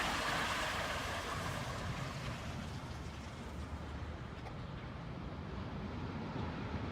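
A steady rushing noise that slowly fades.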